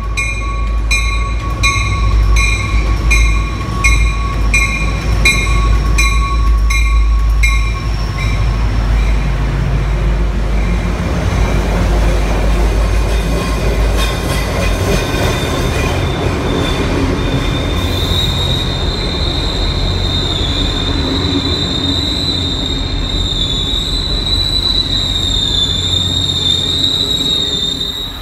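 MBTA commuter rail train arriving at a platform: the diesel locomotive rumbles while its bell rings about twice a second for the first eight seconds. The coaches then roll past with a steady rumble, and a high, wavering wheel squeal sets in for the last ten seconds.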